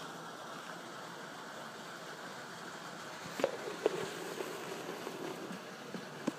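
Steady hiss and hum of background noise by an otter pool, with sharp knocks about three and a half, four and six seconds in.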